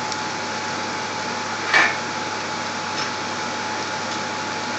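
Onions and spices sizzling in a steel saucepan on the hob, a steady hiss, with one short knock about two seconds in.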